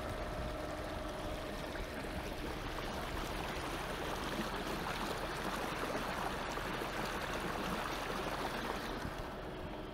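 Water rushing and splashing along the side of a small boat's hull as it moves under power, a steady wash that swells in the middle. A faint steady whine, the boat's electric outboard motor, fades under it within the first two seconds.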